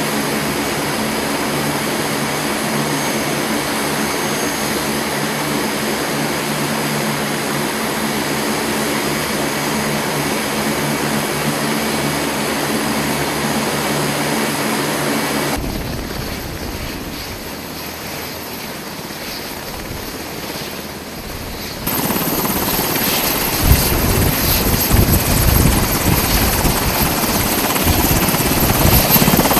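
MH-60R Seahawk helicopter running on the ground with its rotor turning, a steady drone holding several tones. After a quieter stretch about midway it comes in closer and louder, with a low pulsing rotor beat and a high steady turbine whine.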